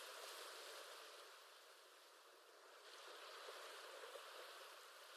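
Faint ocean waves washing in a soft, even hiss that ebbs about two seconds in and swells again just before three seconds.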